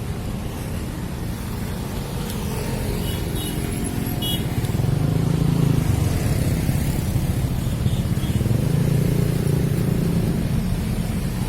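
Low rumble of road vehicles going past, swelling twice as they pass.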